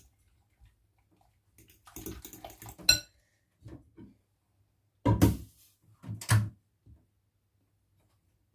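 Kitchen bowls and utensils being handled: a short clatter ending in a sharp ringing clink about three seconds in, a couple of light knocks, then two louder clatters a second apart.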